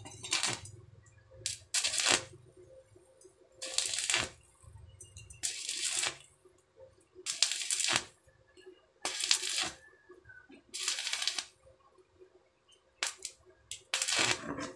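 Stick (arc) welding on steel angle bar with a small inverter welder: the electrode arc crackles in about nine short bursts, each under a second and one to two seconds apart, as the frame's joints are tack-welded.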